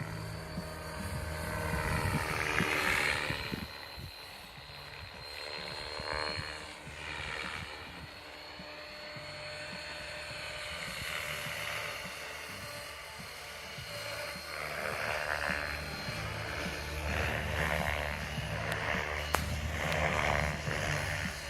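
Align T-Rex 550X electric RC helicopter flying aerobatics: the main rotor blades whoosh in swells that rise and fall as it swings about, over a steady high-pitched whine.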